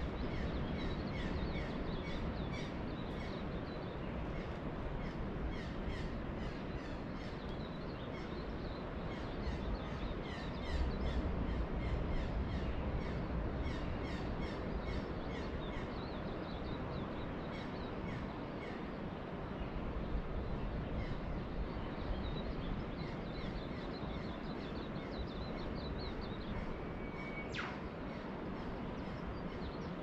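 Dawn birdsong from coastal bush: many short, repeated chirps and calls from several birds, with one longer held note near the end, over a steady low wash of surf.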